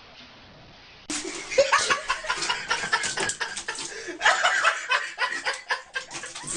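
People laughing, with a lot of clicking and rustling mixed in, starting suddenly about a second in after a faint steady hiss.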